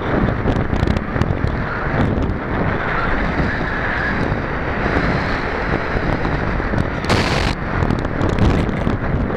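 Wind rushing over the onboard camera's microphone as the Pulsar 3.2 m glider flies with its electric motor off: a loud, steady buffeting with no motor whine. A brief, sharper hiss comes about seven seconds in.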